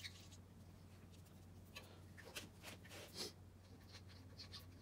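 Faint scratching of a marker tracing around holes through a foil template laid on steel angle iron, several short strokes over a low steady hum.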